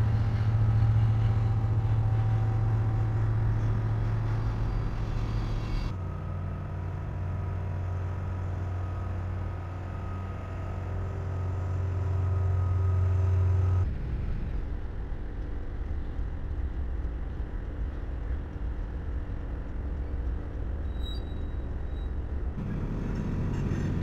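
Diesel freight locomotives running as trains pass, a steady low drone that changes abruptly three times.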